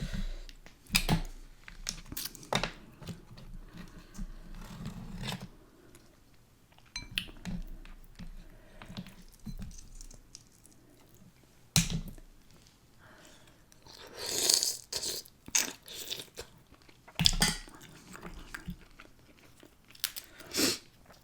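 A person chewing and biting food close to the microphone during a spicy mussel, potato, corn and egg meal. The sounds are irregular, with scattered clicks and a few short, louder bursts spread through.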